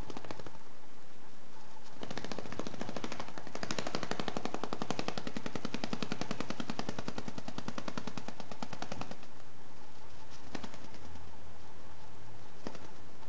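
A young common swift flapping its wings hard in place while clinging to a cloth: a fast, even rattle of wingbeats against the fabric from about two seconds in to about nine seconds, then two single taps. This is the wing-strengthening exercise a swift does before its first flight.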